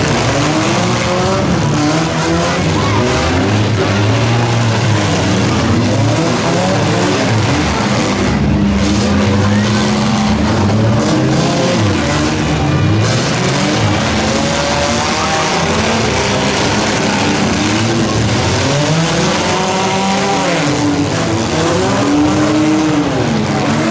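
Several demolition derby compact cars' engines revving hard and dropping back, overlapping one another without a break as the cars push and ram each other in the mud.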